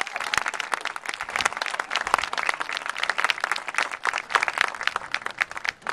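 Crowd in the bleachers applauding, a dense patter of many hands clapping that thins out and dies away near the end.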